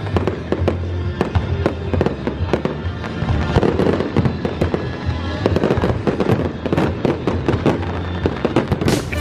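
Fireworks display: many aerial shells bursting in quick, irregular succession, with music playing underneath.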